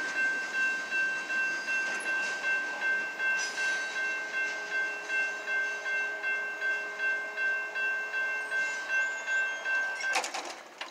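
Railroad crossing bell ringing at about two strokes a second while the crossing gates rise. It cuts off about ten seconds in as the gates come fully upright, followed by a few sharp knocks.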